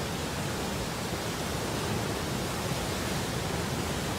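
Steady rushing noise of a debris flow: a wet mass of mud and broken wood sliding over the ground.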